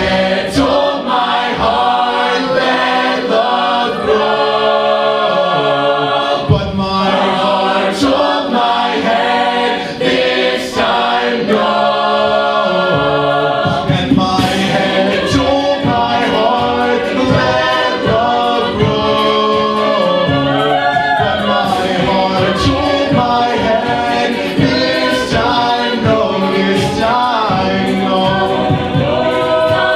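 An a cappella vocal group singing in close multi-part harmony, a wordless passage standing in for the song's instrumental section, with occasional sharp vocal-percussion hits.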